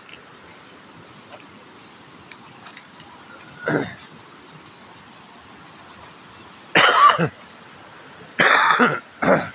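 A person coughing and clearing the throat in four short bursts, the loudest two a little past the middle, over a steady faint high drone of insects.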